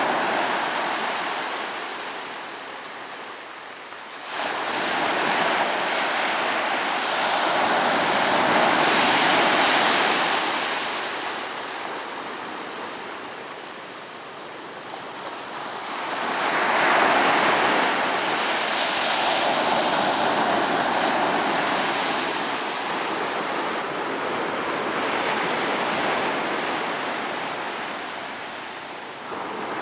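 Ocean surf breaking on a beach: a steady wash of waves that swells and fades in a few long surges, the first one rising suddenly about four seconds in and another building around the middle.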